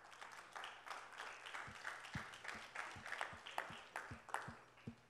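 Congregation applauding, a dense patter of hand claps, with a string of low thumps joining from about a second and a half in.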